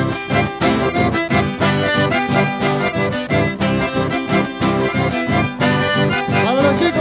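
Live dance-band music with an accordion leading over a steady, driving beat, played as an instrumental passage between sung or shouted lines.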